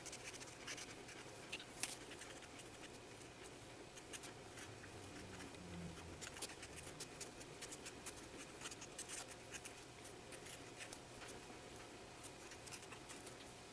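Copic alcohol marker nib stroking across sketchbook paper: faint, quick scratchy strokes and ticks over a low steady room hum.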